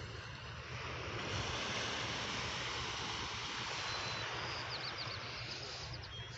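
Outdoor ambience: a steady hiss that swells about a second in and eases near the end, over a low rumble of wind on the microphone, with a few faint high chirps near the end.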